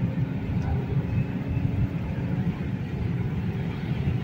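Chevrolet Malibu's naturally aspirated engine running on methane through a fourth-generation STAG 200 GoFast gas injection system, under way on the road: a steady low engine drone and tyre rumble heard inside the cabin.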